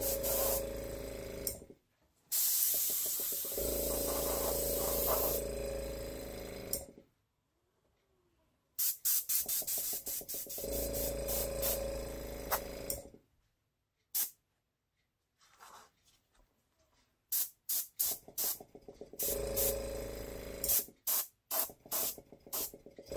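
An airbrush blowing air in on-off bursts, a hiss with a steady hum under each blast. It runs as two longer blasts in the first seven seconds, then many short quick puffs, then longer blasts again near the end. The air is pushing wet acrylic pour paint across the canvas and off its edge.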